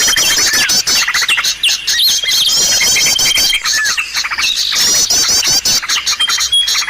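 Bird-lure (pikat) call of many small birds at once: fast chirps, rapid trills and short downslurred notes over a held high whistle that stops and comes back, a dense, unbroken chorus.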